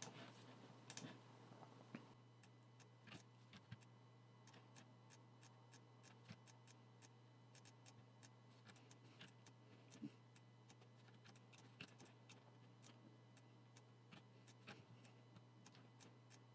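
Near silence with faint, irregular clicks of a computer mouse and keyboard, over a low steady hum.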